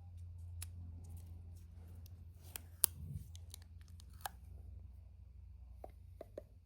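Hands opening surprise-egg packaging: scattered small clicks and brief crinkles of plastic and wrapper, the sharpest click about three seconds in, over a faint low steady hum.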